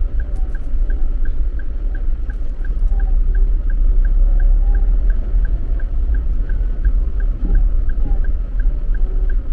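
Car driving over a wet, partly flooded road, heard from inside the cabin: a steady low rumble of engine and tyres with water hissing and splashing under the wheels. A light, regular ticking runs along with it, about three ticks a second.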